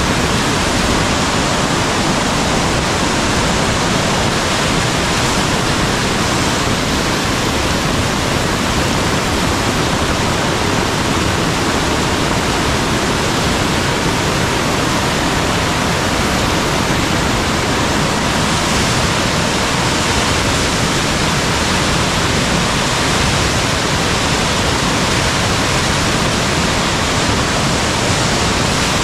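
Steady, loud rush of water from a rain-swollen mountain valley stream.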